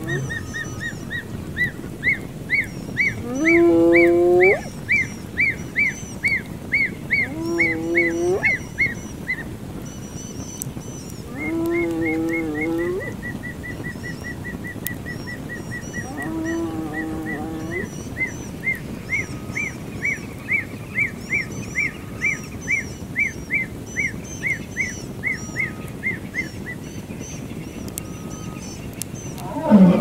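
Wild animal calls: a long low held note that sweeps upward at the end, heard four times about every four seconds in the first half. Behind it runs a high, rapidly pulsing chorus that stops near the end, and a louder low call starts right at the end.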